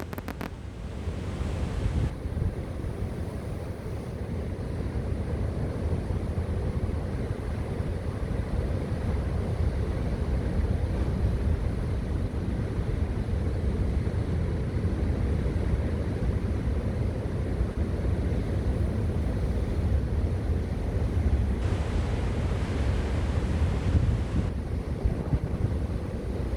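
Sea waves breaking and washing on the shore, with wind buffeting the microphone as a steady low rumble.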